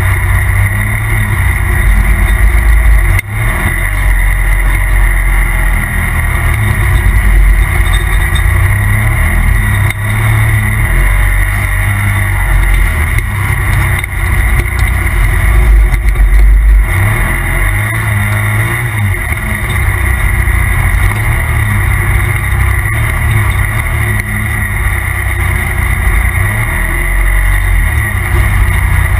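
Polaris RZR Turbo side-by-side running loud and steady while under way, its turbocharged twin-cylinder engine under a heavy low rumble with a constant hiss above it. The sound dips briefly about three seconds in and again just past halfway.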